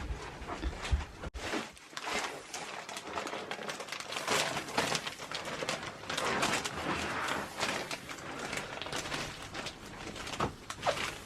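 Rustling and scraping with many small clicks and knocks, the sound of things being handled. A low rumble stops suddenly about a second in.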